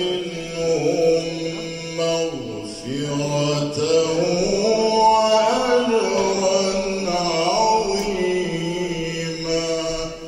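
A man reciting the Quran in the melodic tajweed style: one solo voice holding long, ornamented notes that glide up and down. The phrase dies away near the end.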